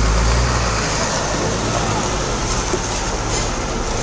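Heavy diesel lorry engine idling; its low hum is strong at first and drops back after about half a second, leaving a steady rumble.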